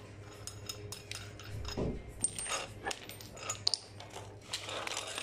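Small steel parts clinking and scraping as they are handled, a scatter of light metallic clicks, some ringing briefly, with a dull knock about two seconds in. A faint steady low hum sits underneath.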